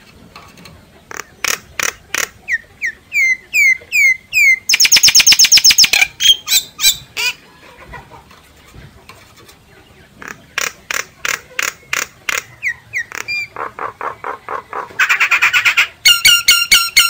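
Chim sáo (myna) decoy calls: a varied string of sharp clicks, repeated down-slurred whistles and fast buzzy rattles and trills. There is a pause of a couple of seconds about halfway through, and the calling picks up again with a rapid, repeated run of notes near the end.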